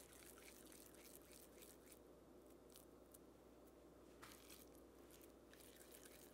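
Very faint, soft squishing of raw ground-beef meatball mixture being rolled between the palms, barely above a low room hum.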